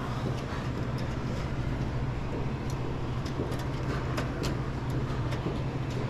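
A steady low hum, with several light metallic clicks in the second half as needle-nose pliers work a link of a conveyor toaster oven's wire-mesh belt.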